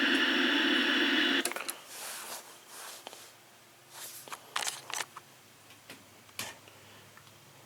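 TV speaker hissing with static from a set with no signal input, cutting off suddenly about a second and a half in as the set goes off. Scattered clicks and knocks follow.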